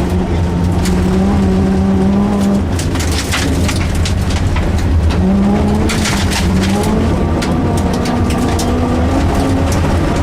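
Rally car engine running hard. Its pitch sags and climbs again as the car is driven through the stage, with many sharp ticks and knocks over a steady rumble of tyres and chassis.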